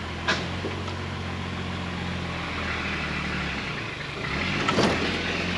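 Truck engine running steadily under load as it tows a dead truck forward. A single sharp knock comes about a third of a second in, and near the end the sound grows louder and noisier, with a clack.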